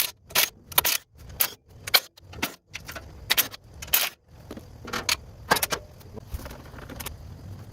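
A rapid, irregular run of sharp clicks and clacks, a dozen or more, thinning out after about five seconds.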